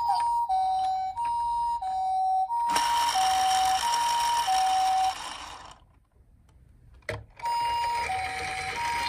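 A toy ambulance's electronic two-tone siren in the Japanese 'pee-po' pattern, a high and a low note alternating about every two-thirds of a second. A steady hiss joins about three seconds in. Both cut out for about a second and a half near the middle, with a click, then the siren starts again.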